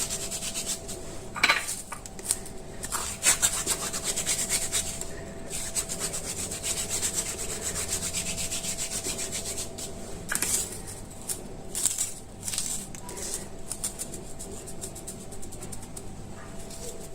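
Dried thyme being rubbed between the palms and crumbled over a pizza: a steady dry rasping, with a few louder strokes about a second and a half in and again near ten and twelve seconds.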